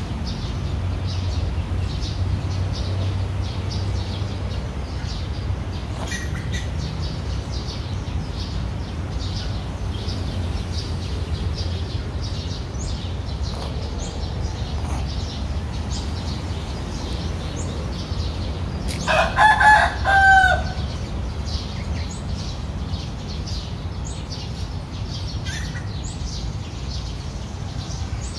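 A rooster crows once, loudly, about two-thirds of the way through. Small birds chirp throughout over a steady low background rumble.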